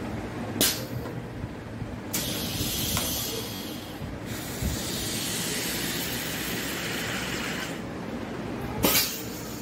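Pneumatic plastic spin welding machine running a weld cycle on an RO filter housing cap: a sharp click about half a second in, then a steady hiss from about two seconds in, briefly broken, as the clamp closes and the spindle presses and spins the cap onto the housing. The hiss stops about two seconds before the end, followed by a sharp burst of released air.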